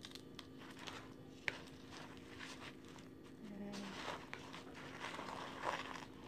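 Soft, intermittent rustling of hands pressing and rolling breadcrumbs onto a rolled chicken breast, with a sharp click about a second and a half in.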